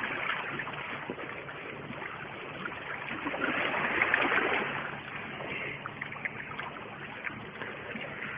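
Sea water washing and lapping against a rocky shore as a steady wash of noise, swelling about three to four seconds in.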